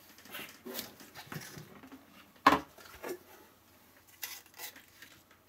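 Plastic pickling tub being opened: the lid is lifted off and set down with rustling and clatter, and one sharp plastic knock about two and a half seconds in is the loudest sound. Lighter knocks follow a little after four seconds as the plastic pickling weights inside are handled.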